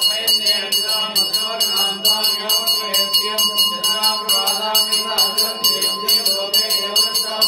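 A temple bell rung rapidly and without pause, an even ringing with about five strikes a second, over a man chanting mantras.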